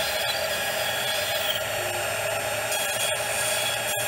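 CNC router spindle running with its bit cutting a profile through wood: a steady whine over an even cutting hiss.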